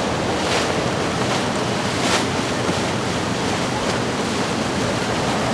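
Steady rush of waves and a passing motor yacht's wake, with wind buffeting the microphone and a few brief surges of hiss, the strongest about two seconds in.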